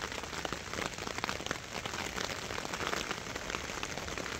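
Steady rain falling, a dense patter of drops.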